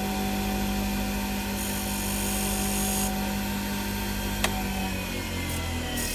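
Mini wood lathe running at a steady speed, its motor giving a steady hum. About two seconds in comes a brief hiss as a pencil marks the spinning spalted maple blank, and a single sharp click follows a couple of seconds later.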